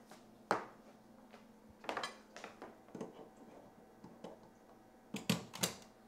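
A series of sharp clicks and knocks from handling a power strip surge protector while its plug is pushed into a wall outlet. The loudest is a quick cluster of three near the end.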